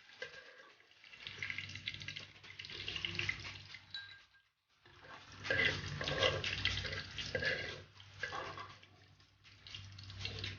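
Water running from a kitchen tap into a sink, stopping abruptly about four and a half seconds in and starting again.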